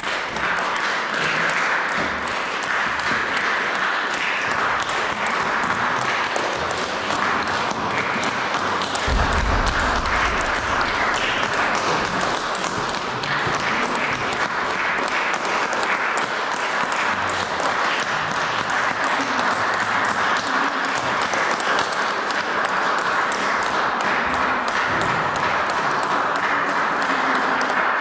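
Audience applauding steadily, a dense patter of hand claps.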